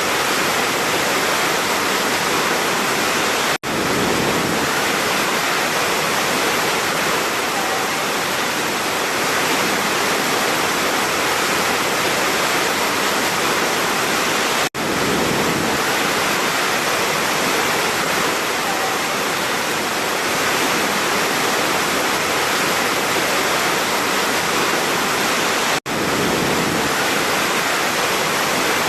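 Large waterfall rushing steadily, a dense roar of falling water. The sound drops out for an instant three times, about every eleven seconds.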